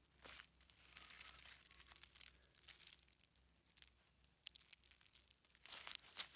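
Dry leaf litter crackling and rustling under a hand digging a bolete mushroom out of the forest floor. It comes in short bursts, and the loudest burst of crackling is near the end.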